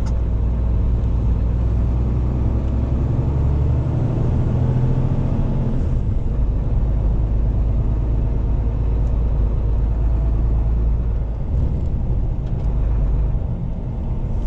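Renault rigid lorry's diesel engine running on the move, a steady low rumble; its note climbs a few seconds in, then holds steady.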